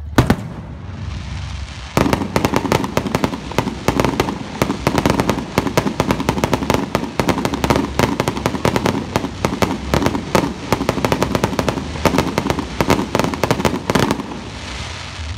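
Fireworks display: one sharp bang right at the start, then from about two seconds in a dense, rapid barrage of cracks and pops from low-bursting shells, thinning out near the end.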